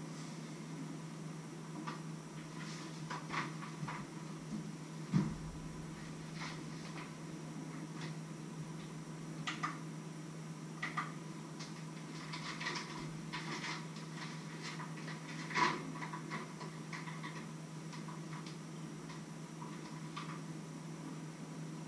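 Scattered light clinks and knocks of kitchen utensils against a metal bowl and the counter during food preparation, the sharpest about five seconds in and again a little after fifteen seconds, over a steady low hum.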